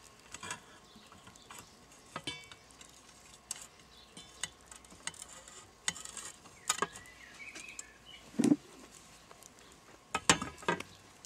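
Scattered light clicks and metallic clinks of a hinged steel-wire grill basket being handled and closed over raw pork ribs. There is a dull knock shortly before the loudest clink, which comes near the end.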